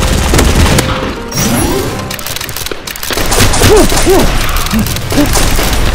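Background music, with a run of short rising-and-falling tones between about one and five seconds in.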